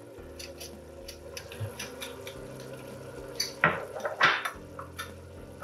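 Teaspoon clicking and scraping against a small dish while mashing squid ink sacs in a little broth, with two louder scrapes about three and a half and four and a quarter seconds in.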